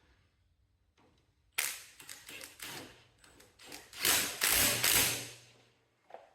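Aerosol can of WD-40 spraying in several hissing bursts, the longest and loudest about four seconds in, with light taps and clicks in between.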